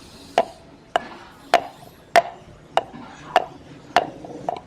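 Steady, evenly paced knocking from a kitchen utensil striking as a homemade herbal remedy is prepared by hand: about eight strikes, one every 0.6 seconds or so.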